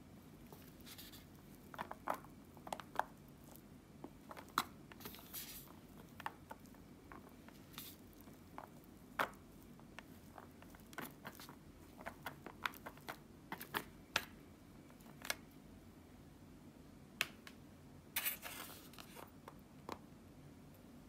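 Wooden chopsticks tapping and scraping against a plastic tray while stirring instant yakisoba noodles: scattered light clicks with a few short soft rustles.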